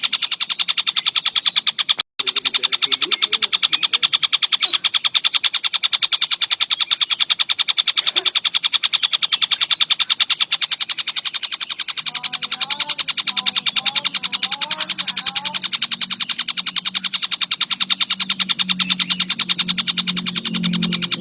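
Tengkek buto kingfisher calling in a fast, unbroken chatter of sharp, evenly repeated notes, cut by a brief gap about two seconds in. Fainter lower warbling notes come in around the middle, and a low steady sound rises near the end.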